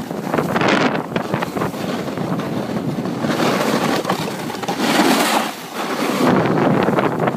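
Snowboard sliding fast down a snow slope: the board's edge scraping and hissing on the snow, swelling loud several times as it carves, mixed with wind rushing over the phone's microphone.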